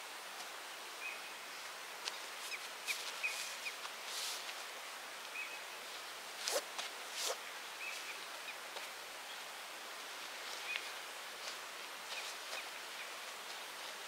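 Outdoor ambience with a steady hiss. A bird repeats a short, high, flat whistled note about a dozen times, and there are scattered clicks and rustles, the sharpest two near the middle.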